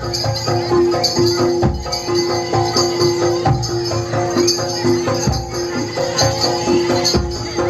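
Live Javanese gamelan music of a jaranan troupe: metal pitched percussion repeating short patterns over a held tone, with regular drum strokes and steady jingling.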